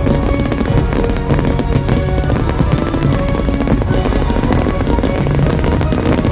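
Fireworks display, many rapid bangs and crackles going off together over loud, continuous show music.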